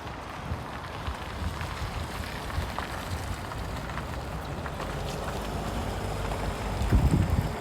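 Wind buffeting a phone's microphone over steady outdoor noise, with a strong low gust about seven seconds in.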